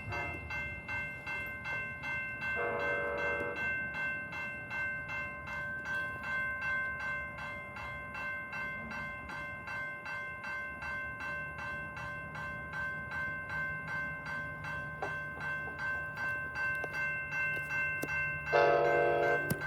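Level-crossing bell ringing steadily at about three strokes a second while a double-deck passenger train approaches, its horn sounding two short blasts, one about two and a half seconds in and one near the end. A low steady rumble of the train comes in about halfway through.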